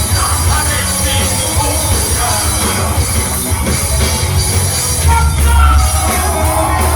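Live rock band playing, with electric guitar, bass and drum kit together and a heavy, steady low end.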